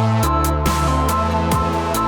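Electronic background music with a steady beat, a pulsing bass line and sustained synth tones.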